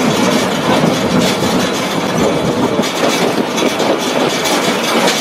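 Narrow-gauge heritage passenger train rolling along, heard from its open-sided car: a steady rumble and rattle of wheels on track with frequent clacks.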